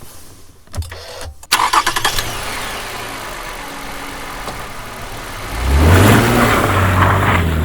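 A 2011 Toyota Camry's engine being started: a brief burst of starter cranking about a second and a half in, the engine catching and settling into a steady run, then its pitch and level rising about two seconds before the end and holding there.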